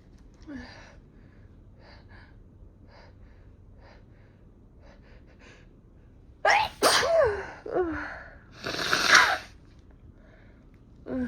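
A fit of several loud, voiced sneezes in quick succession, starting suddenly about six and a half seconds in after some faint sniffing and breathing, with a smaller one near the end. The sneezes are set off by sniffing chhinkni sneezing powder.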